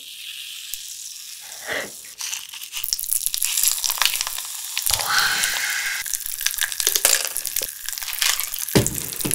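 Lemon-lime soda poured into small cups with a steady hiss, then fizzing and crackling densely, with small clicks of the cups being handled.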